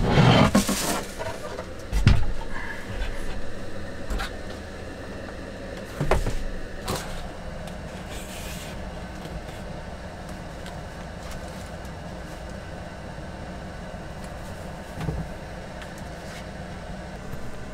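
A large presentation box being handled and opened: a scraping rustle at the start, then a few separate knocks as it is set down and its lid lifted, and a brief rustle as the lid comes off. After that only a low steady hum.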